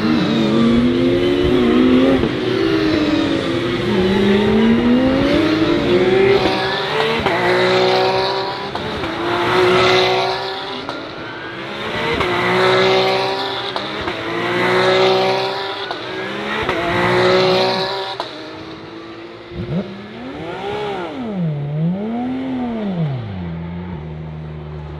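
Porsche 911 GT3 Cup (992) race cars, with naturally aspirated 4.0-litre flat-six engines, passing one after another at speed, each note falling in pitch as it goes by; several run together at first, then about five pass singly. Near the end one engine's revs rise and fall twice, then settle to a low steady note.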